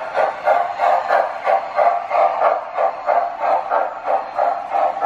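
Model steam locomotive's electronic sound system (MTH Proto-Sound 2.0) playing a steady steam chuff, about three chuffs a second with a hiss, as the O gauge engine runs at speed.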